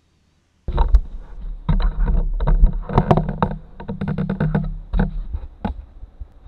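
Handling noise as the camera is picked up and moved: a low rumble with a quick run of knocks and rubbing clicks, fading out near the end.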